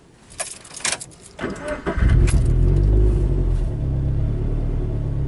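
Two sharp clicks, then the turbocharged Scion FR-S's 2.0-litre flat-four is cranked and catches about two seconds in, settling into a steady idle.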